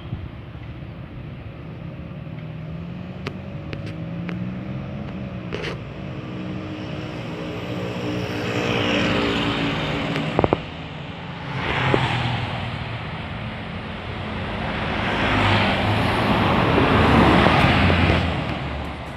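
Road traffic going by: several vehicles pass in turn, each swelling and fading, the loudest near the end. A short sharp click just past halfway.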